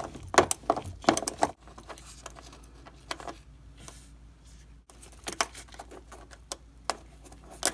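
Socket wrench ratchet clicking in quick runs as a 10 mm nut is backed off a terminal stud on an LG washer's heating element, followed by a few scattered light metallic clicks as the loosened nut is handled by hand.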